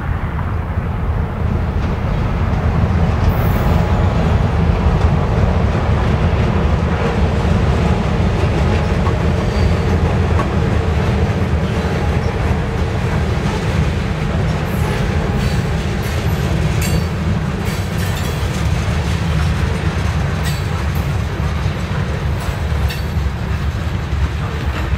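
Norfolk Southern local freight train rolling past: a steady, heavy rumble of wheels on rail, with scattered wheel clicks in the second half.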